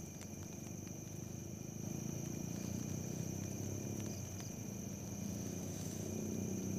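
Night ambience of steady insect calls: a constant high, thin drone over a low fluttering rumble.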